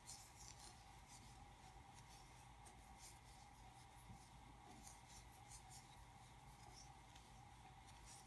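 Near silence: faint, irregular scratchy rubbing of a metal crochet hook working single crochet stitches through worsted-weight yarn, over a steady faint hum.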